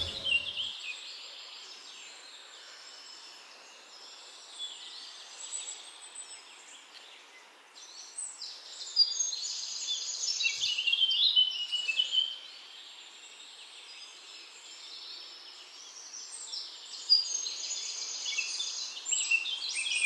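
Small birds chirping in a busy chorus of short, high notes, louder in clusters, over a faint steady hiss.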